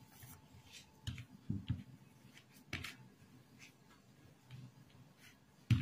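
Soft cookie dough being kneaded by hand in a plastic bowl and pressed on a plastic-covered table: scattered soft thuds and rustles, with a sharper knock near the end.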